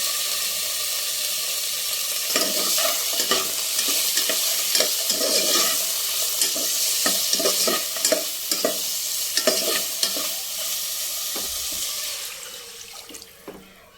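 Food sizzling as it fries in a pan while being stirred, with frequent scrapes and knocks of the stirring spoon against the pan. The sizzle dies down over the last couple of seconds.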